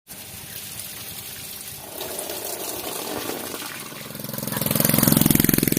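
A cow mooing: one long, low moo that swells in from about four seconds in and is loudest near the end, over a steady hiss of background noise.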